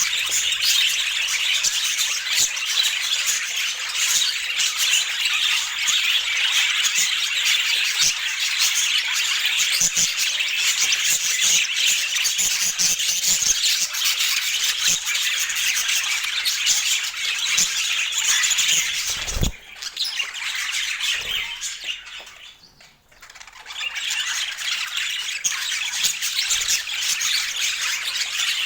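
A group of budgerigars chattering, a dense high chirping that goes on without a break. About two-thirds of the way through there is a low thump, then the chirping drops away for a couple of seconds before it resumes.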